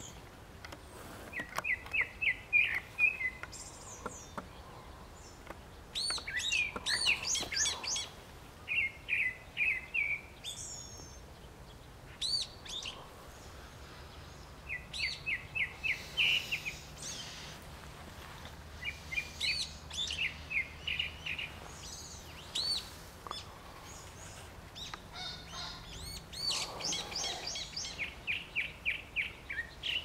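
Brown-eared bulbul calling: short runs of quick, evenly repeated notes alternating with higher, arching calls, in phrases every few seconds.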